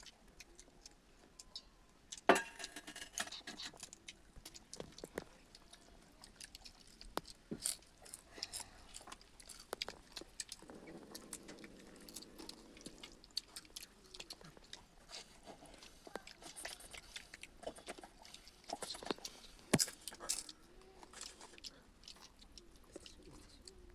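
Close-up eating sounds: a person chewing and crunching food, with many short, sharp clicks scattered through. The loudest clicks come about two seconds in and again late on.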